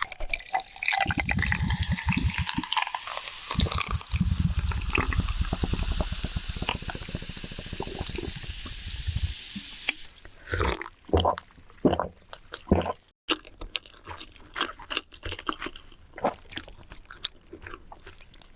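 Wet, sloshing noise of noodles being handled in liquid for about the first nine seconds, then scattered short wet clicks and smacks.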